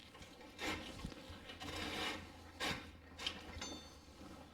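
Rust-seized rear brake rotor on a Jeep Wrangler being levered round on its hub with a pry bar: several short, faint metal-on-metal rasps and ratcheting scrapes, with a brief metallic ring near the end. A low steady hum runs underneath.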